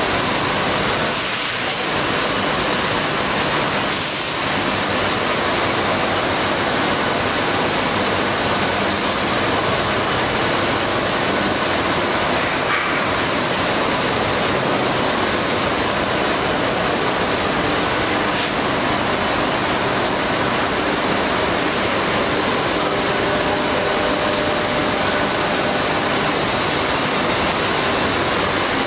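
WEEKE Optimat BHX 560 CNC through-feed drilling machine running, giving a loud, steady rushing noise, with two brief higher-pitched bursts in the first few seconds.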